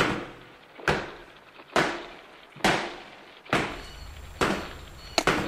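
Slow, even drum beat: one heavy hit with a long reverberant fade about every 0.9 seconds, with two quick hits close together near the end.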